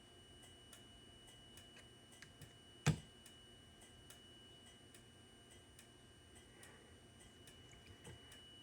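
Faint, steady high-pitched whine from a silenced Simplex 4903-9236 horn/strobe, with soft regular ticking and one sharp click about three seconds in.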